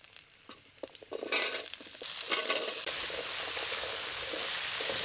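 Papaya cubes dropped into hot mustard oil in an aluminium kadai: a few light taps and drops, then about a second in a loud sizzle starts and carries on steadily as the pieces fry and are stirred with a spatula.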